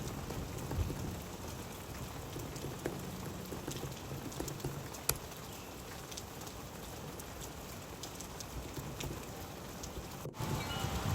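Steady rain falling, with scattered drops ticking sharply on hard surfaces and one louder tick about five seconds in. Near the end the sound drops out for an instant and comes back louder.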